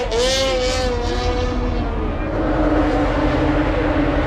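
Race snowmobile engines running, their pitch wavering up and down, then settling into a steady drone about two seconds in.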